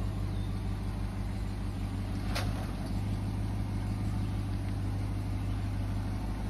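A vehicle engine running steadily at low speed on a rock-crawling trail, with a short click about two and a half seconds in.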